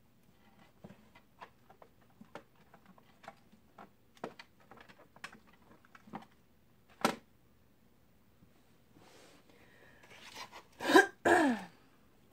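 Faint rustles and small ticks of hands on a burlap bow and a twig wreath, with one sharper click about seven seconds in. Near the end, a loud short two-part vocal noise from the crafter, falling in pitch.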